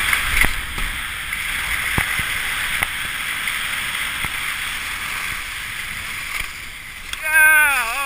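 Steady rushing hiss of wind and snow against the camera microphone, with a few light knocks in the first few seconds. About seven seconds in, a person lets out a loud, drawn-out groaning cry that falls in pitch, coming as the skier crashes.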